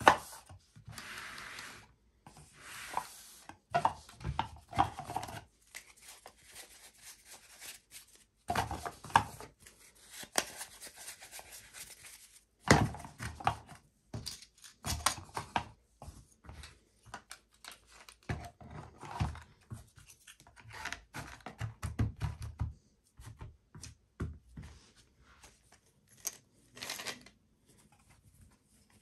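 Hands handling board game parts: plastic organiser trays, card stacks and cardboard tokens slid, lifted and set down in a cardboard box, with rubbing and scraping between a few sharp knocks, the loudest right at the start and another about halfway.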